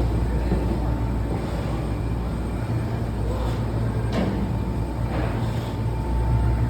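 Industrial machinery running with a steady low hum and a faint steady high tone, with a sharp knock about four seconds in.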